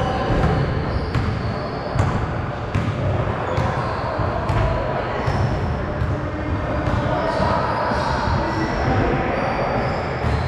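Basketball bouncing on a gym floor, sharp thuds about once a second, with players' voices in the background.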